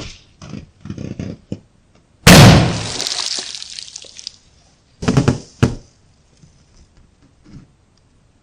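Slime-filled balloons being popped: a loud sudden pop about two seconds in that trails off over about two seconds, then two sharper pops around five seconds in, with a few softer small sounds before and after.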